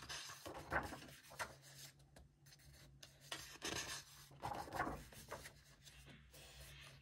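Pages of a large colouring book being turned by hand: a few soft papery swishes as sheets are flipped over and rubbed flat.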